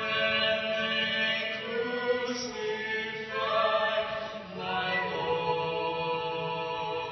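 Slow sung vocal music, chant-like, with long held notes that shift pitch every second or two.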